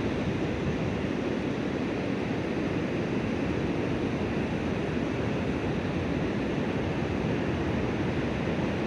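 Steady rushing of flowing river water, an even hiss-like wash that does not change in loudness.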